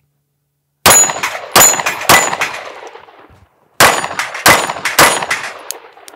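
Six one-handed pistol shots at a steel plate rack, each followed by the ring of a struck steel plate. They come in two strings of three: three strong-hand shots, a pause of about a second and a half for the change to the support hand, then three more.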